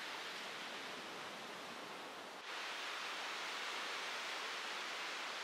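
Steady hiss of surf washing up a beach. About two and a half seconds in it cuts abruptly and comes back slightly louder.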